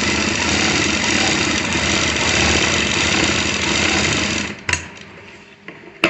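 Rima sewing machine running steadily, stitching cord piping through a folded cloth strip under a single-sided piping foot. It stops about four and a half seconds in, followed by a few sharp clicks.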